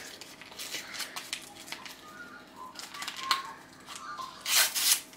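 Brown paper wrapping crinkling and tearing as a small parcel is unwrapped by hand, with two louder rips near the end.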